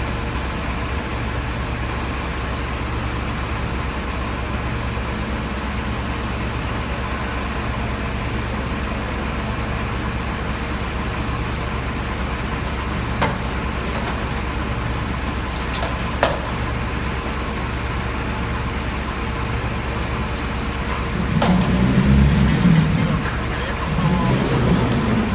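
Large diesel truck engine running steadily, with two sharp clicks about halfway through and a louder swell in the low rumble near the end.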